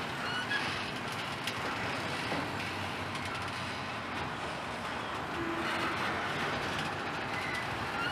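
Norfolk Southern double-stack intermodal train's well cars rolling past: a steady rumble of steel wheels on rail with a few faint clicks.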